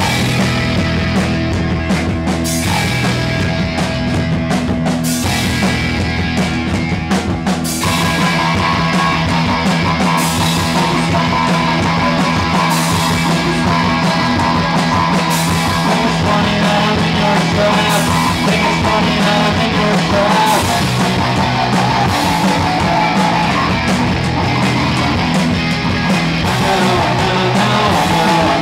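Live punk rock band playing loud, with a drum kit and electric guitars. The opening bars break off briefly a few times, and about eight seconds in the full band plays on without a break.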